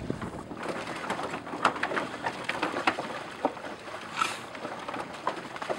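Swamp water buffalo hooves knocking irregularly on the wooden planks of a raised pen as the animals walk down one by one into the water, with a short splash about four seconds in.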